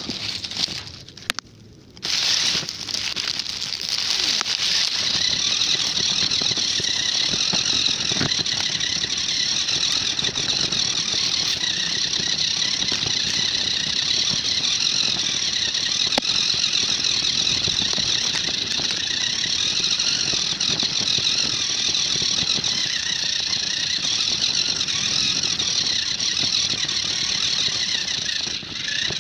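A toy RC car's electric motor and gears whine steadily from about two seconds in, with dry grass and weeds scraping past. The sound is picked up by a phone mounted on the front of the car.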